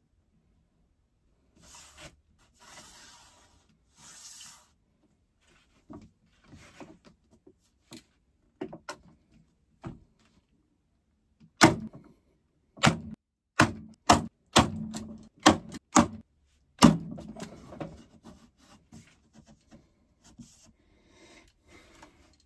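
A handheld nailer firing about ten sharp shots in quick succession, fastening a thin hardboard top along its edge, with light knocking and rattling between shots. Three short hisses come a couple of seconds before the shots.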